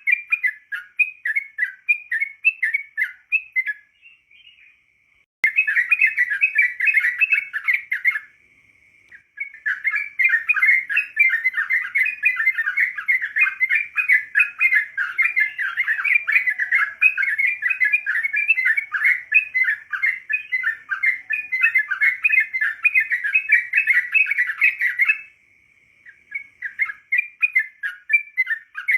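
A songbird singing long runs of rapid chattering notes in the trucukan (yellow-vented bulbul) style used as masteran song, breaking off briefly about four and eight seconds in and falling quiet near the end.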